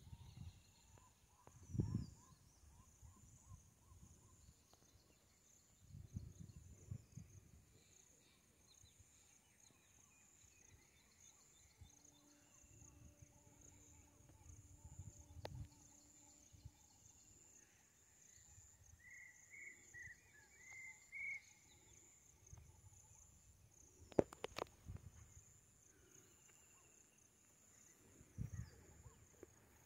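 Faint outdoor ambience by a pond: a steady high insect chirring, a short run of bird chirps about two-thirds of the way in, scattered low rumbles on the microphone, and one sharp click late on.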